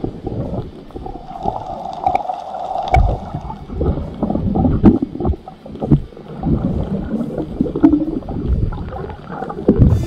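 Muffled underwater sound through a submerged camera: water sloshing and gurgling, with irregular low knocks and thumps. A brief steady hum in the first few seconds.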